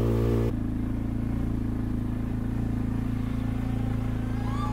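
Background music cuts off about half a second in, giving way to a quad bike's engine running steadily with an even, rapid low pulse and no revving.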